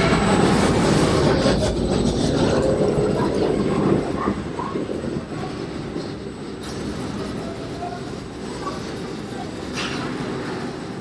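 Roller coaster train rolling along its track with a steady rumble and rattle, louder for about the first four seconds, then settling lower.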